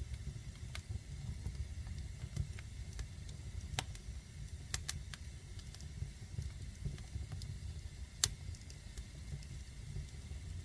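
Fire burning in a fireplace: scattered sharp crackles and pops over a steady low rumble, the loudest pop about eight seconds in.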